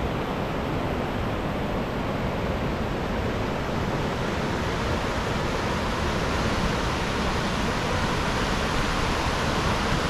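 Rapids of the Fukiware Falls gorge rushing over bare rock: a steady, even rush of white water.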